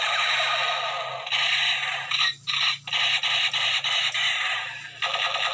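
ZS159 electric toy machine gun firing, its built-in speaker playing a rapid electronic machine-gun rattle. It breaks off twice briefly a little over two seconds in, tails off near the end, then starts again.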